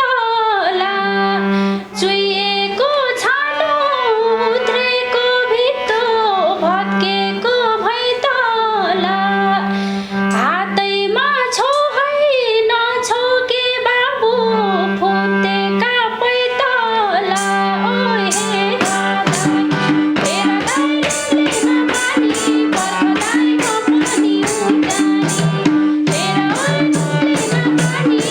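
Nepali dohori folk music: a gliding melody line over steady held drone notes, with fast, even hand-drum strokes joining about two-thirds of the way through.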